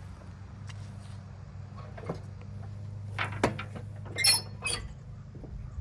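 Hand work on metal mower parts: scattered clicks and knocks, then two bright ringing metallic clinks about four seconds in, over a steady low hum.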